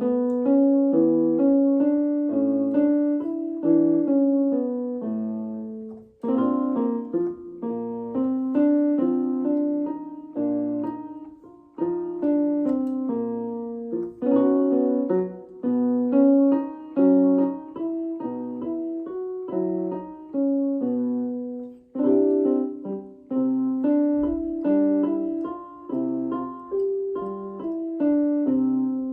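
Piano accompaniment for a vocal exercise, playing the same short pattern of notes and chords over and over in phrases, with no voice singing over it. There are short breaks between phrases about six and twelve seconds in.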